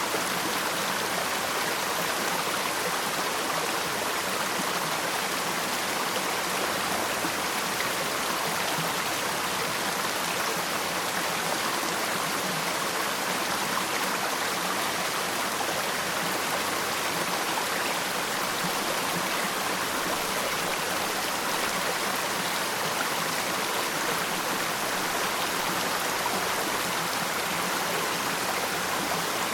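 Waterfall: water pouring and splashing in a steady, even rush with no change.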